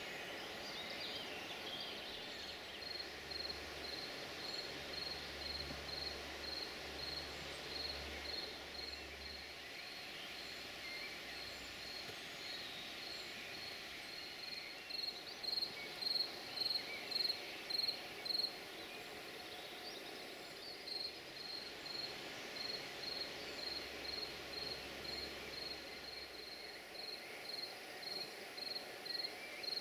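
A cricket chirping in an even rhythm of about two short chirps a second, loudest about halfway through. Faint bird calls and a low distant hum sit behind it.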